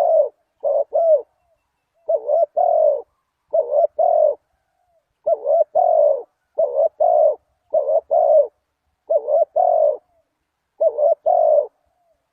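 Spotted dove cooing: a steady series of about eight coo phrases, one every second and a half or so, each a short note followed by a longer one.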